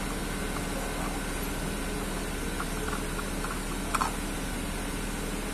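Steady low mechanical hum, with one brief faint click about four seconds in.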